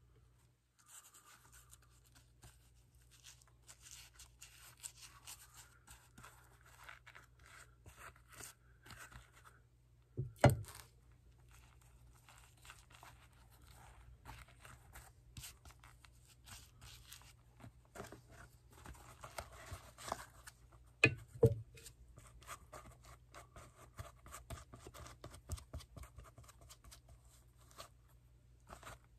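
Faint scratching and rustling of leather as a shoe upper's toe lining is worked by hand and brushed with cement, with a few sharp knocks about a third of the way in and twice around two-thirds of the way in.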